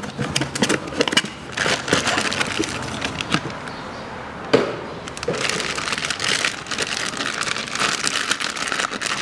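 Cardboard box being opened, then a plastic bag crinkling and rustling as it is handled and unwrapped, with one sharper snap about halfway through.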